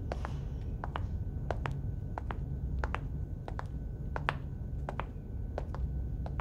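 A run of sharp taps or clicks, mostly in close pairs about two-thirds of a second apart, over a steady low hum.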